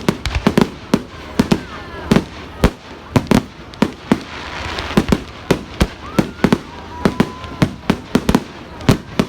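Fireworks display going off in rapid, irregular bangs, several a second, with a hissing rush about four to five seconds in.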